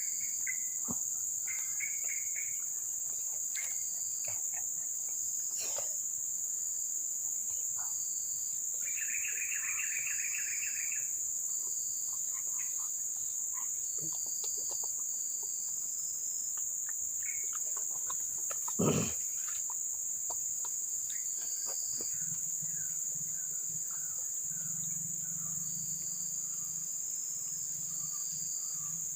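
Steady high-pitched drone of insects, with scattered bird calls (a rapid pulsed call about nine seconds in), a single sharp knock about 19 seconds in, and a low hum joining from about 22 seconds in.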